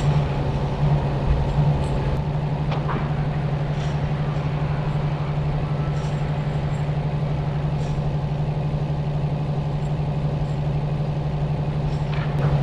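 A motor vehicle's engine running steadily at a constant low pitch, with a few faint clicks.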